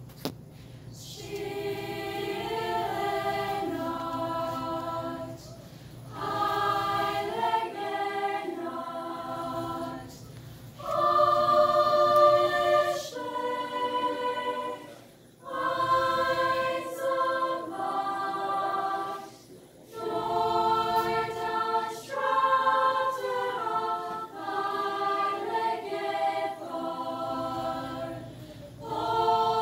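High school madrigal choir singing a cappella in several voice parts, in phrases separated by short pauses.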